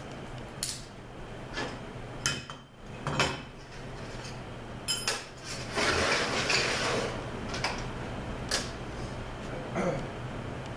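Steel automatic-transmission parts (clutch drums and hubs) clinking and knocking against a steel workbench as they are handled, a string of separate sharp metal knocks, with a short scraping stretch as a drum slides on the bench a little past halfway.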